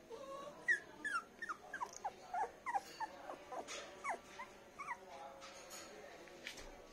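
Poodle puppy whimpering: a quick run of short, high, falling squeaks over about the first five seconds, then dying away.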